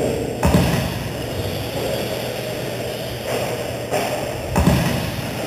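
Electric 2wd RC stadium trucks racing on an indoor dirt track: a steady noise of motors and tyres in a large hall, with two thuds, one about half a second in and one near the end.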